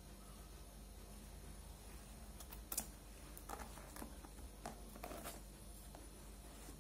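Faint handling of stiff buckram on the work table: a sharp click a little under three seconds in, then a few short scratchy rustles over the next couple of seconds, over a low steady room hum.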